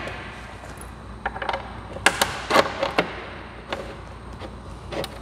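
Scattered small clicks and knocks as a spacer is worked by hand into place between a doors-off mirror bracket and the door hinge, with a quick cluster of sharper clacks about two to three seconds in.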